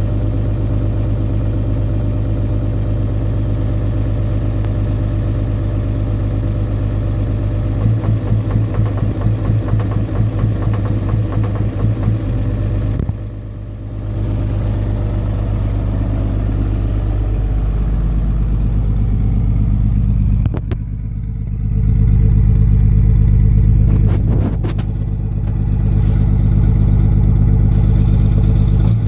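2004 5.9L Cummins common-rail diesel idling with a knock from a bad injector, traced to cylinder #5. The engine note shifts several times: it pulses for a few seconds about a third of the way through, then changes again near the middle and twice more in the later part.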